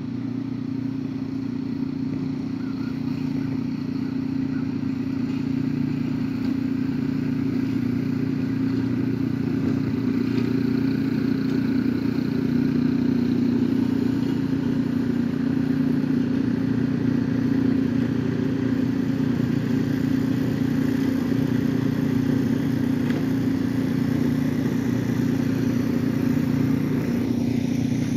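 A steady, low mechanical drone with a strong hum, slowly growing louder.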